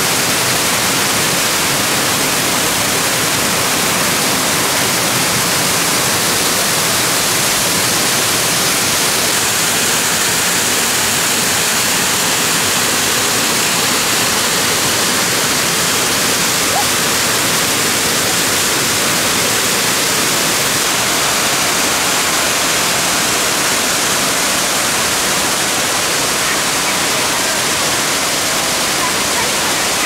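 Waterfall pouring steadily into a rock pool: a constant, loud, even rush of water.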